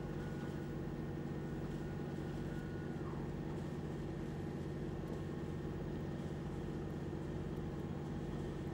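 Yacht's inboard diesel engine running steadily under way, a constant low drone. A faint higher whine fades out about three seconds in.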